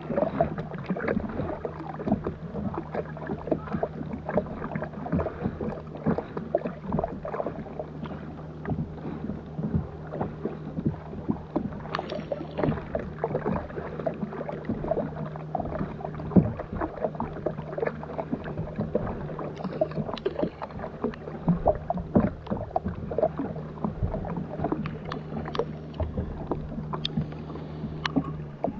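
Double-bladed paddle strokes splashing and water slapping against the plastic hull of a sit-on-top kayak, picked up close from the bow, with a steady low hum underneath.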